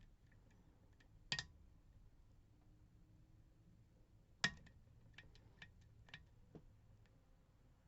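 Small metallic clicks from a lock pick working the pins of an Assa D12 lock cylinder as the pins are set. There are two sharper clicks, about a second and a half in and about four and a half seconds in, then a quick run of lighter ticks.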